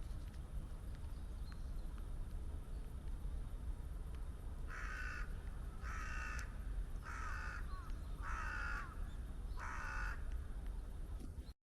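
A crow cawing five times, about one call every second and a bit, over a steady low rumble.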